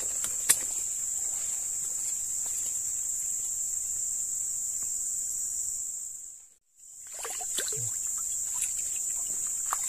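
Steady high-pitched insect chorus droning in tropical undergrowth, with a sharp click about half a second in. All sound fades out briefly about two-thirds of the way through, then returns.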